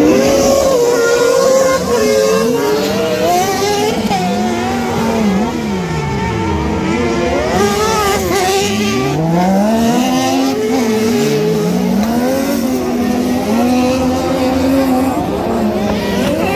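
Several kart-cross buggy engines racing on a dirt track, their pitch climbing and dropping again and again as the drivers accelerate, shift and lift off through the corners, the engines overlapping one another.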